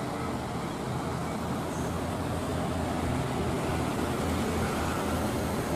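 Diesel engine of a loaded Mitsubishi Fuso Canter dump truck pulling uphill, a steady low rumble with tyre and road noise.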